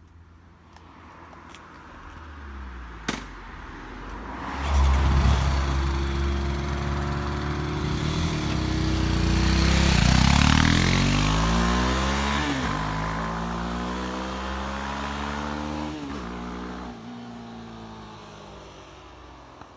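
Road vehicle engines passing by: the sound builds up, is loudest about halfway through, then draws away with its pitch falling and fades. A single sharp click sounds about three seconds in.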